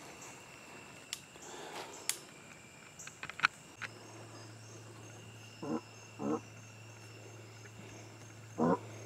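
A fatally wounded feral hog lying in the grass gives short grunts: two about half a second apart past the middle, and a third just before the end. Scattered clicks and rustles come earlier, and a steady low hum starts just under halfway.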